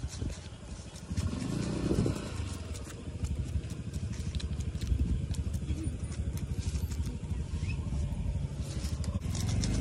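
Small engine running steadily, growing louder near the end, with a brief faint voice about two seconds in.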